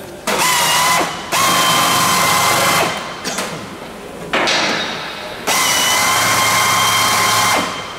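Hand-held drill with a countersink cutter running in several bursts of a second or two, each with a steady whine, as it cuts countersinks into the holes of a new 2024-T3 aluminium aircraft skin panel.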